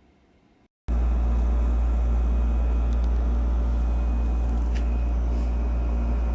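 A loud, steady, low mechanical rumble with a hum, like a running engine, starting abruptly about a second in.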